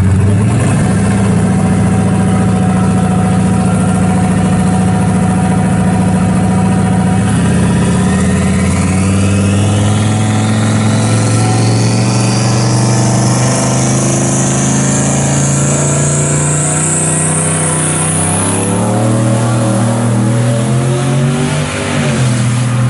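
Turbocharged Chevrolet Silverado pickup's engine held at the drag strip starting line: the engine speed steps up about a third of the way in, and a turbo whistle climbs steadily in pitch as the turbo builds boost. Near the end the truck launches, and the engine pitch rises and falls as it pulls away.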